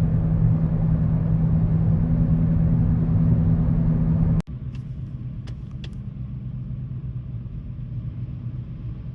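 Steady low rumble and drone of a moving vehicle. About four seconds in it cuts abruptly to a quieter rumble with a few faint clicks.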